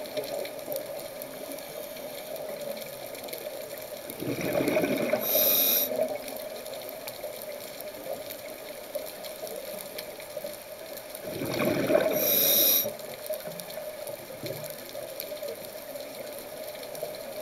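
Scuba diver's breathing heard underwater through the camera: two rushes of exhaled bubbles from the regulator, about seven seconds apart, over a steady underwater hum.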